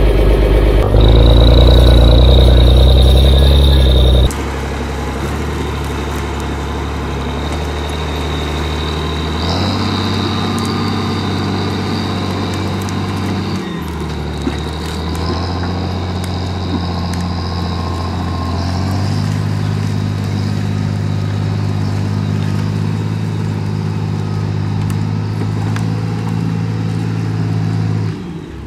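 HSM 904 skidder's 6.7-litre engine running, loud and close for the first four seconds, then steadily from farther off, its revs stepping up and down several times as the hydraulic crane lifts and swings logs. A thin high steady whine sits above the engine.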